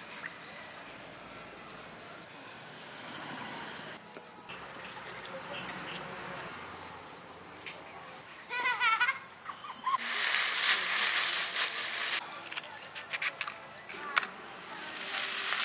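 Insects chirping in a steady, high, unbroken tone, with a short bird call about halfway through. Loud rustling noise breaks in for about two seconds after that, with a single click and another burst of rustling near the end.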